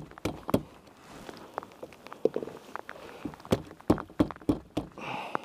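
Irregular clicks and knocks of a wire-mesh trap and bait being handled on a wooden muskrat trapping float, with a short rustle near the end.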